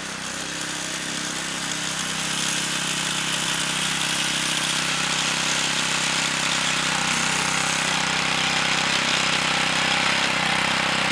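Small gasoline lawnmower engine running steadily on a homemade remote-controlled mower crossing tall grass, growing louder over the first couple of seconds and then holding steady.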